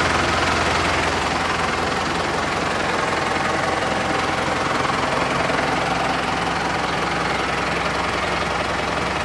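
Valtra N141 tractor's 4.9-litre SISU six-cylinder diesel idling steadily.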